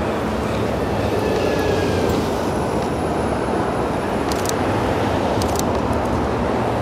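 Steady city street traffic noise from passing cars and a bus. About four and a half and five and a half seconds in come two quick clicks of the camera shutter.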